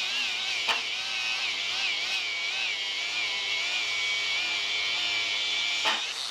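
Angle grinder with a 36-grit fibre sanding disc grinding a weld, its whine wavering up and down in pitch as the disc is pressed in and eased off. Two sharp ticks, one under a second in and one near the end.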